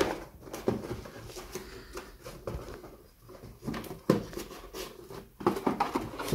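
Cardboard packaging being handled: scrapes, rustles and light knocks as a small black cardboard box is set back into a larger box, with a busier, louder run of knocks and scrapes near the end.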